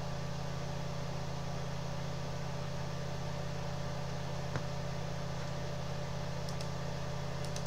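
Steady low hum with a faint hiss, unchanging throughout, with one faint click about halfway through and a few faint ticks near the end.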